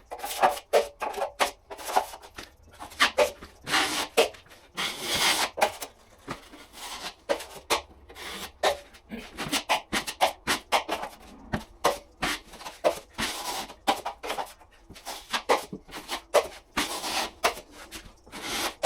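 Plastering blade scraping a top coat of plaster compound across plasterboard in quick, irregular strokes, with a few longer sweeps.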